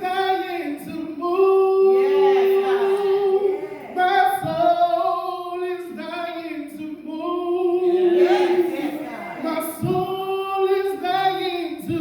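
A woman singing a gospel solo in long, held notes that waver slightly.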